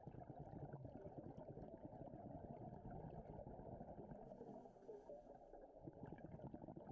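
Faint, steady low rumble of underwater ambience picked up by a camera in an underwater housing; the deepest part of the rumble drops away briefly about five seconds in.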